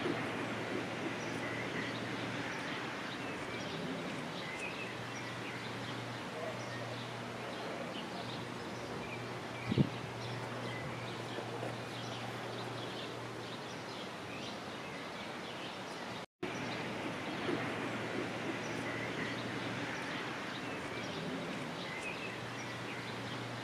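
Outdoor ambience: small birds chirping now and then over a steady low hum and background noise. One sharp knock about ten seconds in, and the sound drops out for an instant at about sixteen seconds.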